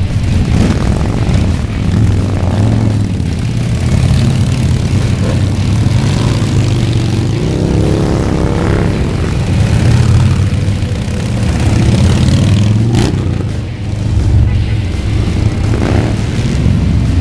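Many motorcycle engines running together in a mass ride, a loud steady low rumble, with an engine revving up and down about halfway through.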